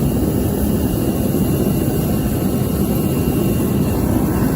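Forced-air torpedo heater running, its fan and burner making a steady, deep rushing noise.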